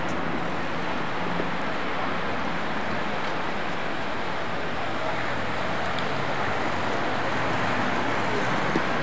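Steady outdoor city ambience on a camcorder microphone: a constant hiss of distant traffic with a low rumble, without distinct events.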